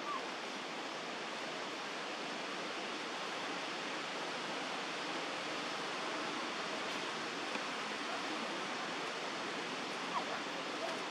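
Steady, even rushing background noise outdoors, with a couple of faint short chirps, one right at the start and one about ten seconds in.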